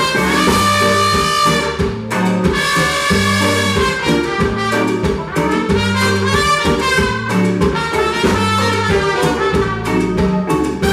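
Live band playing, with a trumpet carrying the lead in long held notes over a drum kit and a low bass line.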